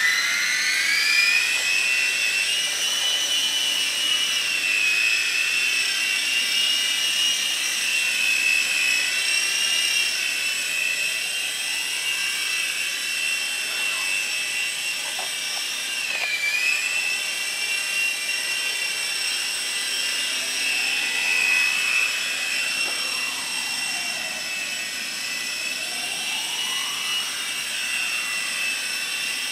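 Nine Eagles Bravo III micro coaxial RC helicopter's two 7 mm electric motors and twin rotors whining as it flies. The pitch rises as the rotors spin up over the first two seconds, then holds fairly steady, with a brief dip about halfway through.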